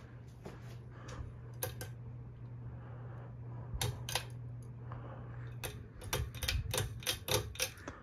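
Hampton Bay Woodland ceiling fan's motor humming steadily, with scattered sharp clicks. The hum cuts out about two-thirds of the way in, followed by a quick run of a dozen or so sharp clicks.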